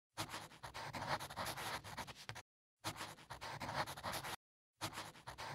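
Marker pen writing, in three runs of rapid scratching strokes with short silent pauses between them, the first about two seconds long and the last under a second.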